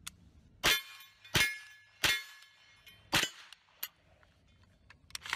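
Four gunshots from a 9mm AR-9 carbine, fired singly at an uneven pace, roughly a second apart. A thin metallic ring lingers for about a second after the first shot.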